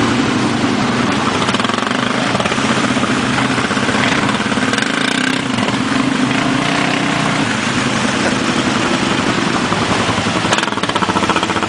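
ATV engine running steadily at a low, even throttle.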